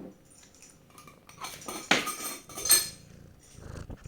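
Hard household objects being handled: two sharp clinks, about two and three seconds in, with lighter clicking and rattling around them.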